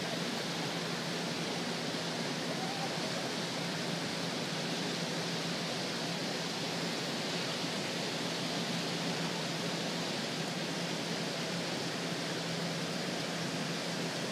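Heavy thunderstorm rain falling, a steady even hiss, with a faint steady low hum beneath it.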